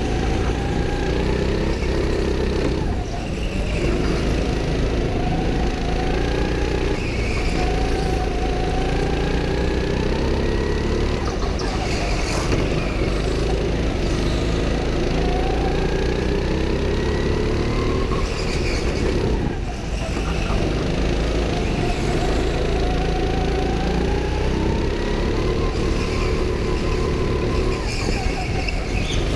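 Go-kart engine heard up close from the kart itself under hard driving, its note climbing and falling again and again as the throttle is worked, with brief drops about three seconds in and again about twenty seconds in.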